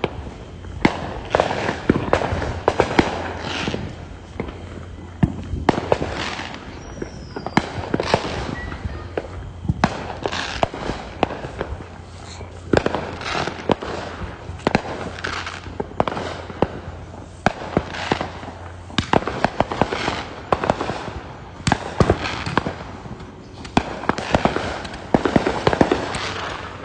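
Neighbourhood fireworks going off: a near-continuous string of sharp bangs and pops of differing loudness, with crackling between them.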